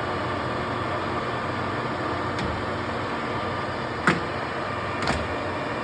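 15-inch Clausing Colchester lathe running under power, a steady whir with a faint steady tone, its power cross-slide feed engaged. Two sharp clicks come about a second apart near the end.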